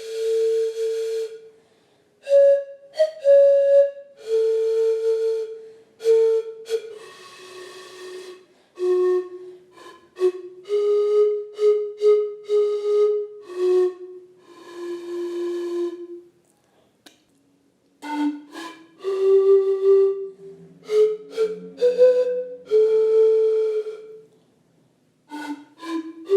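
Handmade ceramic antara (Andean panpipe) blown one pipe at a time: a string of short, breathy notes in a middle register, with the hiss of the breath strong over each tone and brief pauses between notes. There is a short silence about two-thirds of the way in, and a lower tone sounds briefly under the notes soon after.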